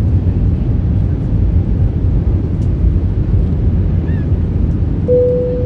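Airbus A319 cabin noise on approach: a steady low rumble of the engines and airflow heard from a window seat. About five seconds in a single steady tone starts and holds for about a second.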